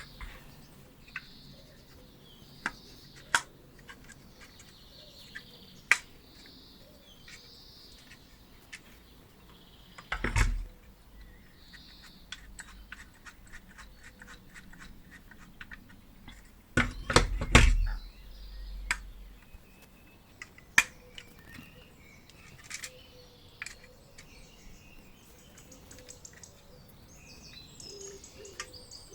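Scattered sharp clicks and light knocks, with two louder low thumps about ten seconds in and again around seventeen to eighteen seconds in. Faint bird chirps sound in the background.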